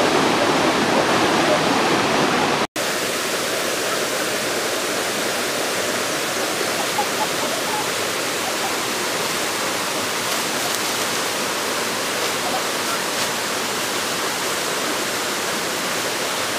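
Steady rushing of a small waterfall. The sound cuts out for an instant about three seconds in and comes back slightly quieter and thinner.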